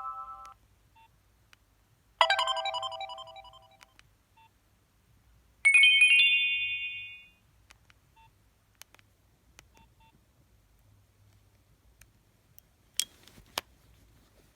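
Short preloaded alert tones from a Nokia 2760 phone's speaker: a bright chime about two seconds in and a higher one near six seconds, each dying away over a second or two. Two sharp clicks near the end.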